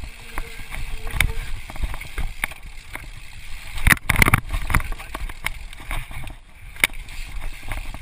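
Mountain bike clattering and jolting over rocks and roots on a trail descent: a run of irregular knocks and rattles over a low rumble, with a burst of heavier knocks about halfway through as the bike drops over boulders.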